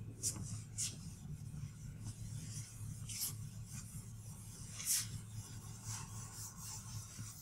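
Sponge wiping chalk off a chalkboard in several short, hissing strokes, over a steady low hum.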